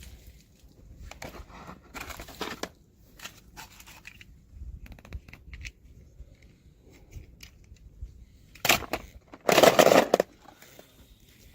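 Packaging being handled and opened by hand: scattered rustles and crinkles in short bursts, with the loudest burst about two seconds before the end.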